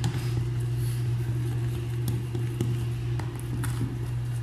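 A steady low machine hum, with a few light clicks of a spoon against a plastic tub as thick batter is stirred.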